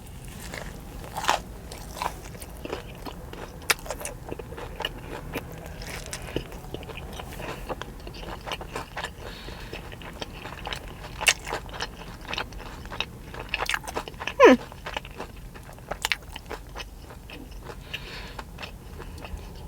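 Close-up biting and chewing of a hand-breaded chicken tender wrap: crisp crunches and wet mouth clicks coming irregularly.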